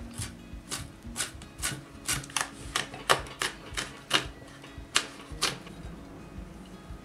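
Kitchen knife slicing green bell pepper on a wooden cutting board: a string of sharp knocks, about two or three a second, that stops about five and a half seconds in.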